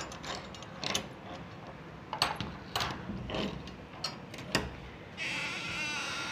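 Padlock and key clicking and rattling against a metal door latch as it is unlocked, several sharp clicks and knocks. About five seconds in, as the door swings open, a steady, higher-pitched sound sets in suddenly and keeps going.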